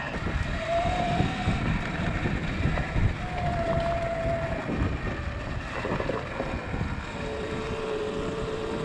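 Sur-Ron electric dirt bike's motor whining, the whine coming and going and its pitch rising and falling with speed, over a steady low rumble.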